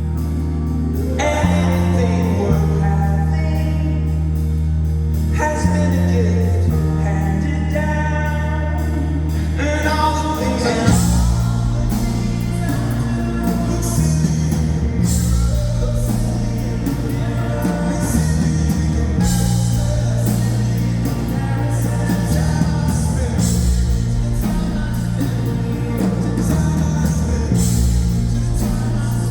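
Live rock band with a singer: long held low notes under a sung line, then the full band comes in with a steady beat about eleven seconds in.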